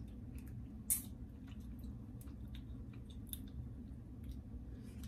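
Scattered small clicks and crackles from a hand tool working on seafood shells, with one sharper crack about a second in.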